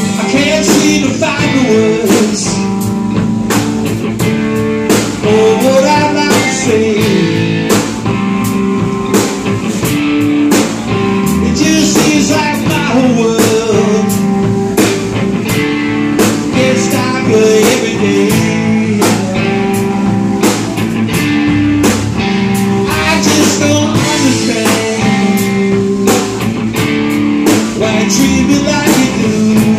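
Live band playing a song: two electric guitars, electric bass and a Ludwig drum kit, with a man singing into the microphone.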